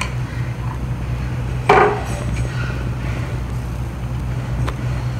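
A hot steel bearing being lifted off an induction heater and set onto a steel shaft: one sharp metal clank with a short ring about two seconds in, and a light click near the end, over a steady low hum.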